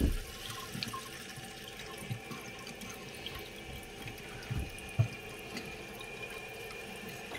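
Toilet tank refilling after a flush: water running in with a steady hiss, a faint high steady tone joining it about two seconds in. A few light knocks, the sharpest about five seconds in.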